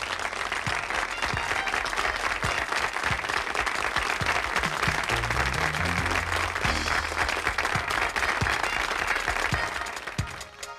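Studio audience applauding over the show's break music, which plays steady low bass notes; the applause dies away near the end.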